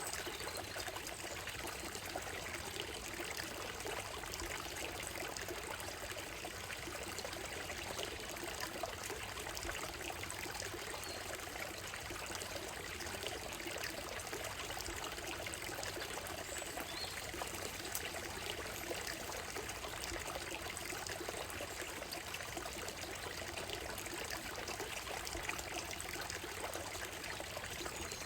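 Shallow stream running over a gravel and stone bed, a steady trickling rush of water with no change throughout.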